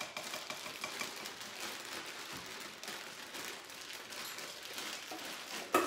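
Plastic zip-top bag crinkling and rustling as chopped vegetables are handled in it, with small crackles and clicks throughout. There is a brief louder knock near the end.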